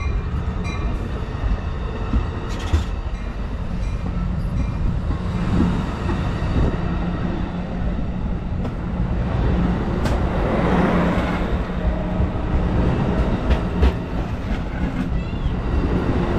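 Amtrak Pacific Surfliner bilevel passenger cars rolling slowly past alongside the platform: a steady low rumble of wheels and running gear, with a few sharp clicks and clunks from the wheels on the rails.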